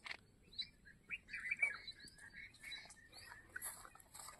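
Small birds chirping, faintly: many short, quick chirps and twitters, scattered and overlapping.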